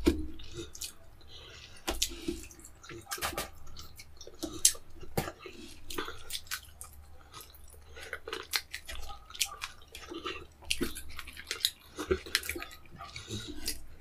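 Wet chewing and lip-smacking of a man eating fufu and egusi soup with fish by hand, a rapid, irregular run of sharp wet smacks and clicks.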